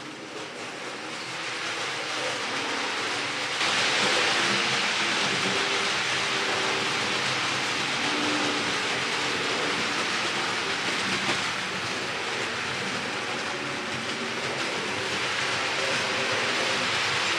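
Märklin HO three-rail model trains running on metal track: a steady rushing rattle of wheels on the rails with a faint motor whine, louder from about three and a half seconds in.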